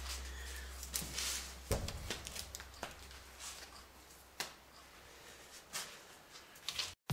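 Faint scattered clicks, knocks and rustles of hand handling at a workbench, with a low steady hum that stops about one and a half seconds in.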